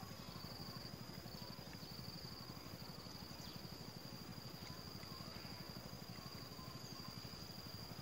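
A faint, steady, high-pitched insect trill, with a low rumble underneath.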